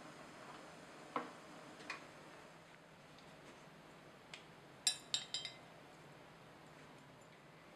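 Metal strainer clinking against a glass bowl as drained fettuccine is tipped in: a quick run of four sharp clinks about five seconds in, after a couple of lighter knocks.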